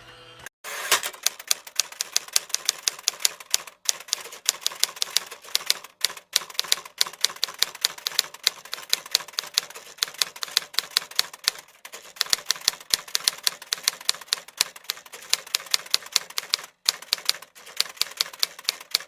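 Typing on a computer keyboard: a fast, uneven run of key clicks, several a second, starting about a second in and broken by a few brief pauses.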